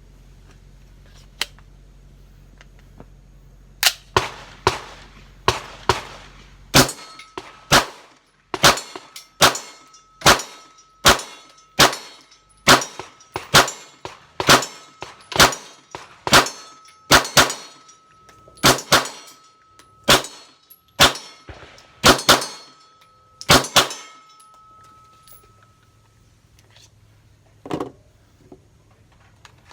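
9mm Kriss Vector firing about two dozen single shots at a steady pace of a little more than one a second, with a steel target ringing faintly under the shots.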